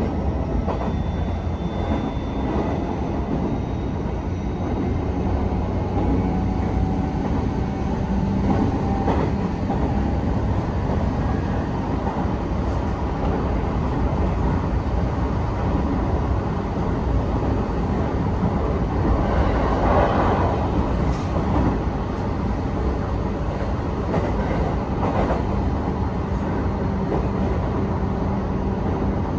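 Running noise of a JR East E129-series electric train heard from inside the car: a steady low rumble of wheels on rail, with a few faint knocks.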